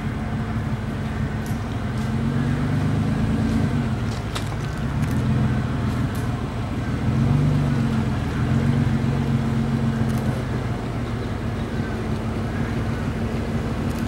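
Mitsubishi L200 pickup's engine running as it wades through a shallow river ford, its pitch swelling up and down several times as it is revved, over a steady rush of water.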